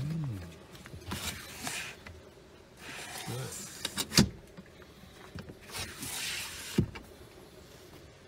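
Manual rear sliding window of a 2020 Chevrolet Colorado pickup cab being unlatched and slid open by hand. It gives a few short sliding scrapes in its track and sharp latch clicks, the loudest about four seconds in and another near seven seconds.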